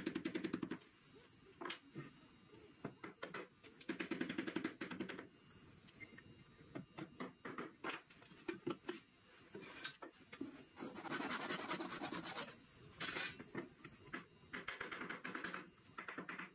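Runs of rapid, light hammer taps on wood, each run lasting about a second, with scattered single knocks between them.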